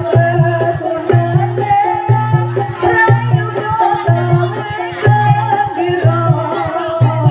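Live jaranan gamelan music: hand drums and gong-type beats keep a steady rhythm under a wavering melody line, with rattling percussion.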